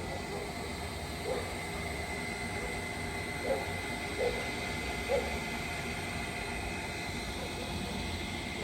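A dog barking about four times, a second or two apart, over a steady background hiss and a thin, steady high tone.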